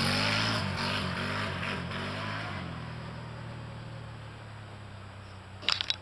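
ATV engine revving as the quad rides away, its pitch rising and dropping several times, then settling into a steadier drone that fades with distance. A short clatter of clicks near the end.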